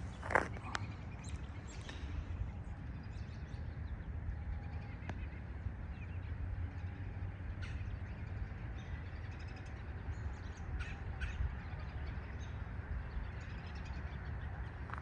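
Outdoor park ambience: one loud bird call just after the start, then scattered faint bird chirps, over a steady low rumble.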